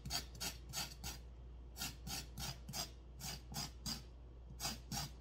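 Kitchen knife blade scraping the skin off a raw carrot, short scraping strokes about two or three a second with a couple of brief pauses.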